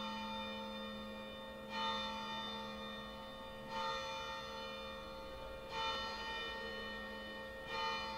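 A bell-like chime struck about every two seconds, each stroke ringing on and fading slowly, over a steady low hum.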